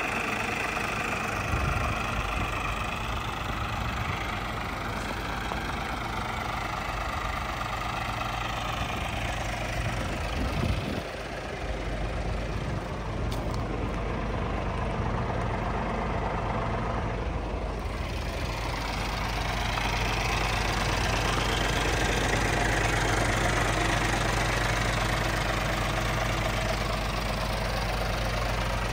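Scania R450 truck's 13-litre straight-six diesel engine idling steadily, a low even hum heard from beside the chassis.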